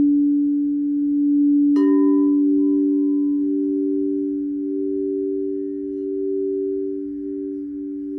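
Singing bowls ringing in two long, steady, overlapping tones. A small chime or bell is struck once, about two seconds in, and its bright ring fades away.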